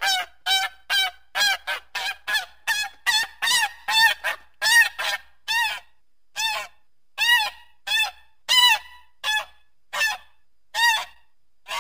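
A goose honking over and over, about two short honks a second, each rising and then falling in pitch. The honks come a little more spread out in the second half.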